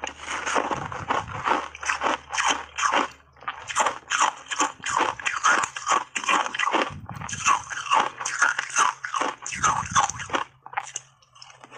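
Close-miked crunching and chewing of shaved ice heavily dusted with matcha powder, in quick, irregular crunches that ease off near the end.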